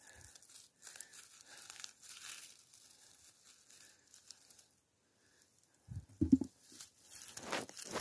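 Dry rustling and crackling of forest undergrowth, twigs and branches as someone moves through it, in two spells with a short gap between. A dull low knock about six seconds in is the loudest moment.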